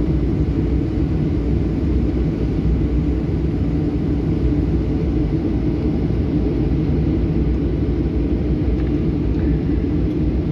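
Steady low rumble inside the cabin of a Boeing 737-800 taxiing after landing: its CFM56-7B engines running at low thrust and the aircraft rolling along the taxiway.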